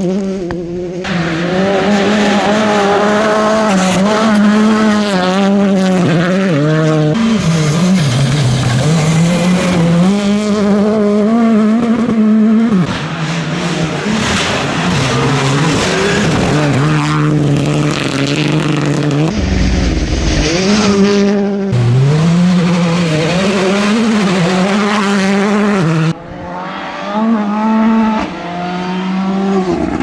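Rally cars driven hard on a gravel stage, engines revving up and dropping back through quick gear changes while the tyres slide and throw gravel. Gravel and stones spray the microphone near the start. The sound changes abruptly several times as a different car takes over.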